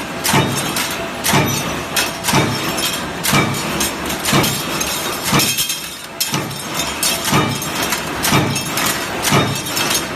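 Automatic punching machine punching rack fixture parts: a sharp metallic clank with a short ring about once a second, in a steady rhythm with a brief pause near the middle.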